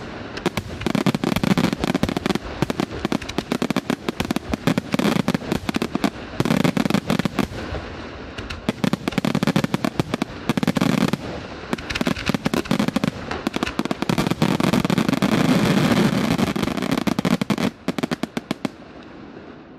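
Aerial fireworks shells bursting in a dense barrage of rapid, overlapping bangs, thinning out and dying away near the end.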